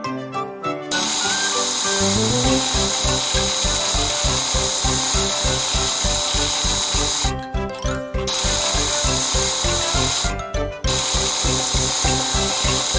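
A power tool whirs steadily, cutting out briefly twice, over cartoon background music whose steady beat comes in about two seconds in.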